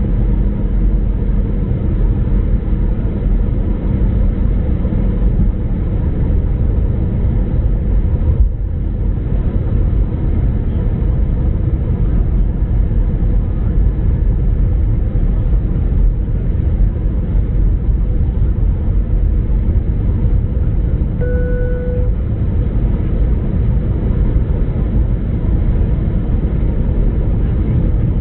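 Steady, loud rumbling cabin noise of an Airbus A319 airliner in flight on approach: engine and airflow noise heard from inside the cabin. About two-thirds of the way through, a short single-pitched beep sounds once.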